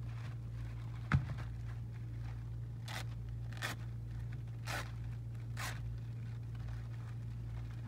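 Thin clear plastic bag being pulled and torn open by hand, with four short crinkling rips in the middle, and one sharp knock about a second in, over a steady low hum.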